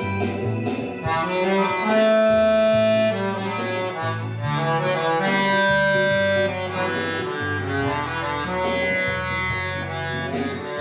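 Solo accordion playing a melody over sustained chords and a moving bass line, with notes held and changing every second or so.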